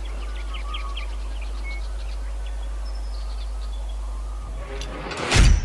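Small birds chirping over a steady low rumble in the open air. Near the end a brief loud whoosh leads into loud guitar rock music.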